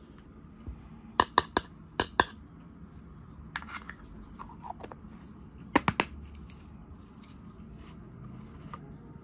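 Hollow yellow plastic toy egg capsule being handled: quick sharp plastic clicks about a second in and again about two seconds in, plastic rubbing around four seconds, and three more clicks near six seconds as the two halves are fitted and snapped shut.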